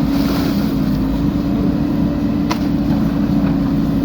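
JCB 3DX backhoe loader's diesel engine running steadily under load, with one short sharp click about two and a half seconds in.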